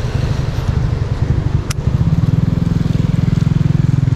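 A small engine running steadily, growing louder about two seconds in, with a single sharp click just before.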